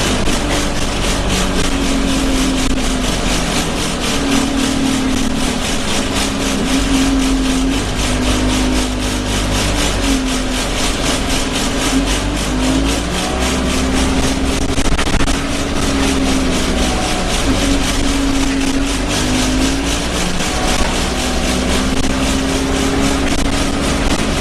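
Inside an Alexander Dennis Enviro 200 single-deck bus on the move: engine and road noise with loud vibration noises from the bus. A low hum comes and goes in stretches of a few seconds over a steady rumble.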